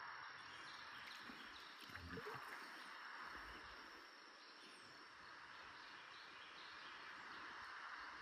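Near silence: faint outdoor background hiss with a thin, steady high-pitched tone.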